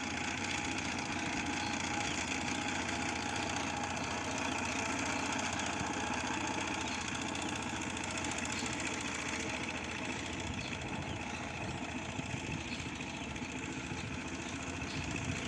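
An engine running steadily with a rapid, even chugging.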